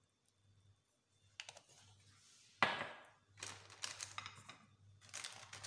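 Near silence at first, then small clicks, a sharp knock about two and a half seconds in, and a run of light clattering and rustling as small spice containers are handled and set down.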